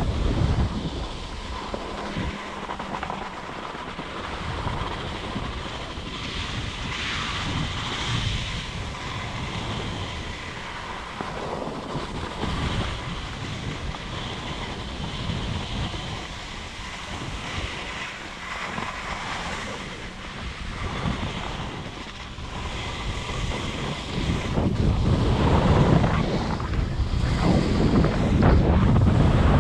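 Wind rushing over a skier's camera microphone, mixed with the skis sliding over wind-packed snow. It is a steady rushing noise that gets louder over the last several seconds.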